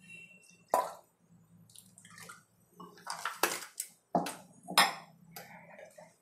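Thin ground mint-and-potato paste poured from a steel container into a pan of pea-and-potato gravy, splashing and dripping, followed by a few sharp clinks and knocks of metal kitchenware, the loudest about five seconds in.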